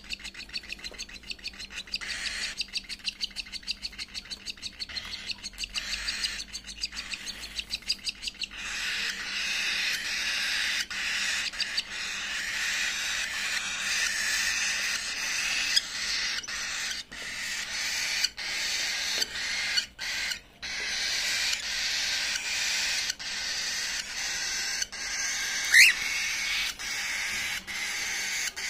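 Cockatiel chicks begging for food while an adult cockatiel feeds them beak to beak. For the first eight seconds or so the calls come as rapid raspy pulses, several a second, then run together into a continuous harsh rasp. A short rising whistled note, the loudest sound, comes near the end.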